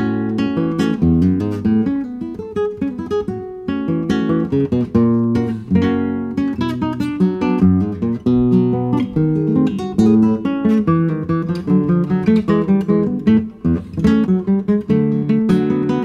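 Solo classical guitar, fingerpicked, playing a milonga: a steady run of plucked notes with a bass line under the melody.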